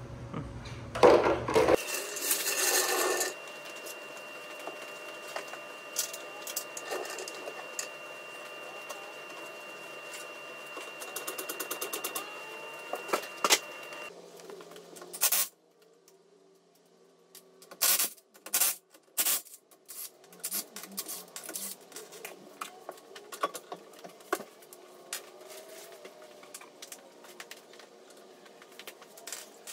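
Scattered clicks, clinks and knocks of car parts and tools being handled, over a faint steady hum, with three louder knocks about 18 to 19 seconds in.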